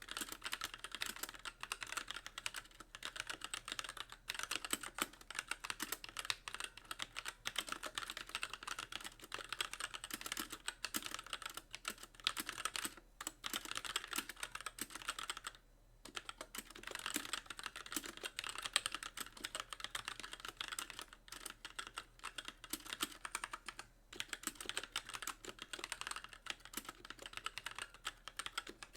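Continuous typing on a Magicforce mechanical keyboard with light Gateron Clear linear switches and stock keycaps, the keys bottoming out on nearly every press; a dense run of clacks with brief pauses about 16 and 24 seconds in.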